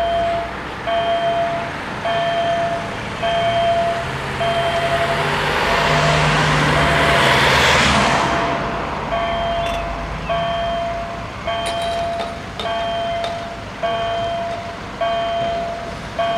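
Level-crossing warning bells sounding a repeating electronic tone, one short tone a little more often than once a second, as the barriers come down. Road traffic crossing the tracks swells and fades in the middle.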